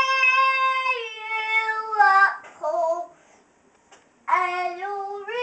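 A young boy singing in mock-opera style: a long held note that steps down in pitch, a few short sung syllables, a pause of about a second, then another long note that slides upward.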